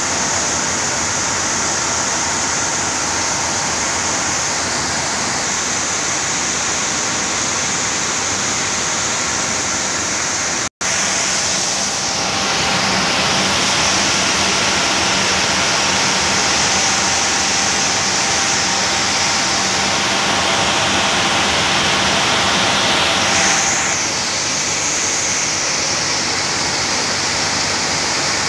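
Rice milling unit machinery running: a loud, steady rushing whir of the mill and its handling equipment. It cuts out for an instant about a third of the way in. After that a low hum runs under the noise until shortly before the end.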